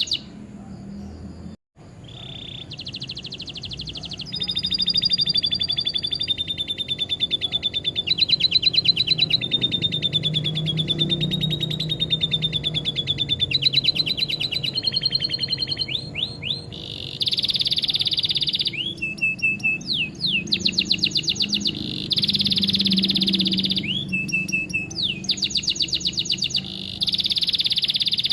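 Canary singing a long, continuous song of fast trills and rapidly repeated phrases, each phrase held a second or two before switching to the next. The song is filled with lovebird-style phrases. The sound drops out briefly about a second and a half in.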